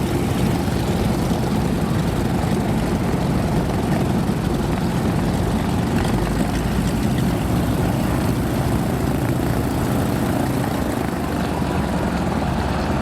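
Vintage propeller aircraft's piston engine running steadily, with no marked change in pitch or level.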